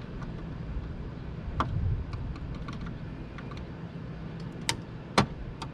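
Sharp clicks and knocks from hands working on an RV refrigerator's exterior vent, the loudest two about five seconds in, with lighter ticking between. Underneath runs a steady low hum from the newly installed 12-volt vent fans.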